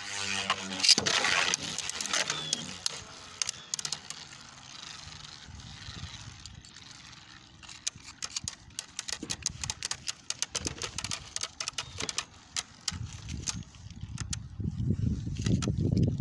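Two Beyblade Burst spinning tops battling in a plastic stadium: a rapid, irregular run of sharp clicks and clacks as the tops strike each other and the stadium. A low rumble rises in the last few seconds.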